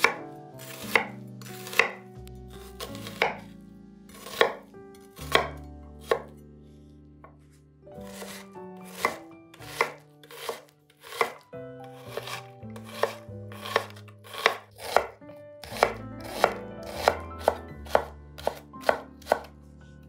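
Chef's knife chopping an onion on a wooden cutting board: sharp knocks of the blade against the board, about one a second at first, then coming faster, around two a second, from about eight seconds in.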